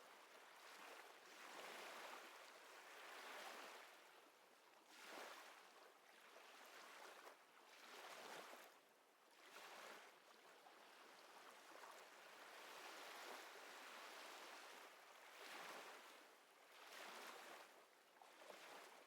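Faint sound of waves washing on a shore: soft swells of rushing water that rise and fall every second or two.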